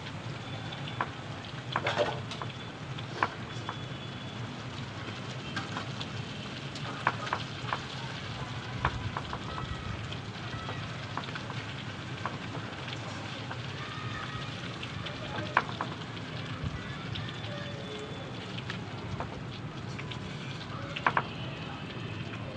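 Shami kebabs frying in oil in a pan over a wood fire: a steady sizzle, broken by scattered sharp clicks and crackles.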